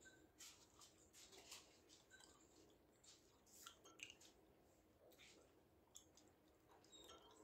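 Near silence broken by faint, scattered clicks and scrapes of a metal fork in a ceramic pasta bowl, with quiet chewing.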